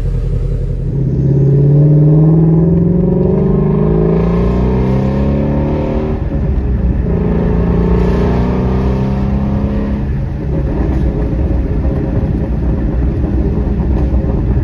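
2018 Shelby GT350's 5.2-litre flat-plane-crank V8 accelerating, heard from inside the car. The engine pitch climbs, drops briefly near the middle as it shifts up, climbs again, then settles to a steady cruise after about ten seconds.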